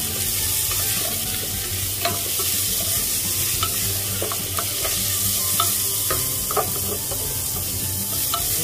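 Chopped onion, garlic and ginger sautéing in hot oil in a metal pressure cooker pot: a steady sizzle, with a wooden spatula stirring and scattered light taps and scrapes against the pot's side.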